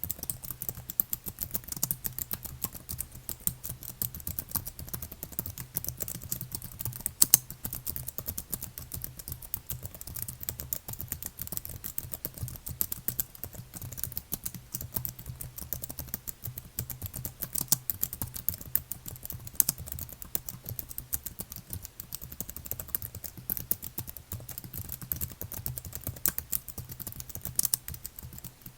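Steady, fast typing on a computer keyboard: a dense, irregular patter of key clicks with a few louder keystrokes, one sharper than the rest about seven seconds in.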